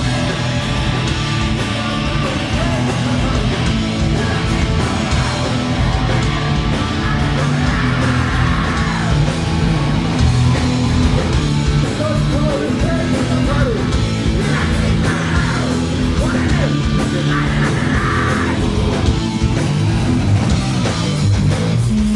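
Loud heavy rock music with distorted electric guitar and yelled vocals.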